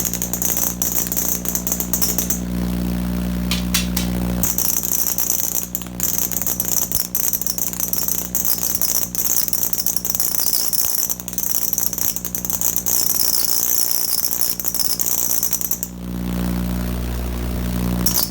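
Vacuum tube Tesla coil running with a loud high-pitched screech over a low mains hum; the screech cuts out about two seconds in and near the end, leaving only the hum, then comes back. The pitch is higher than the owner expects and he cannot explain it, though he doubts it is grid leak.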